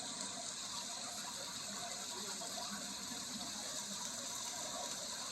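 A steady rushing noise, even and unbroken, with its weight in the hiss rather than the low end.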